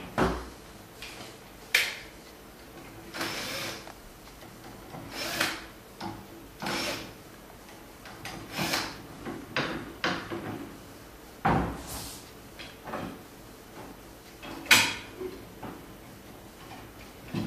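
Aluminium parts of a CNC router table kit being handled and fitted together: a string of separate knocks, clinks and short scrapes, with a louder knock near the end.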